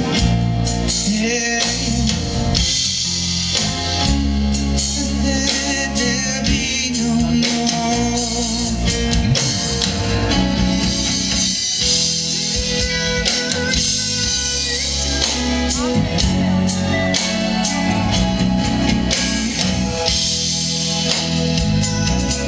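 Amplified live band playing a song during a sound check: a singer over guitar, bass and drums.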